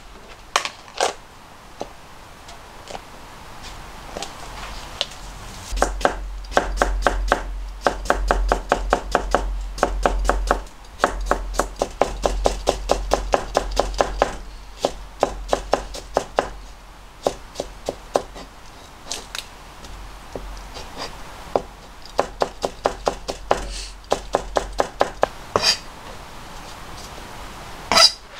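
Kitchen knife chopping cucumber on a plastic cutting board: fast runs of about five strokes a second with short pauses, the strokes growing sparser in the second half.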